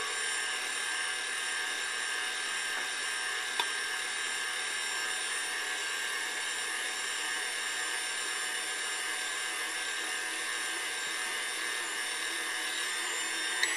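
KitchenAid stand mixer running steadily, its motor whining as the dough hook kneads sticky bread dough. Two sharp clicks, one about three and a half seconds in and one near the end.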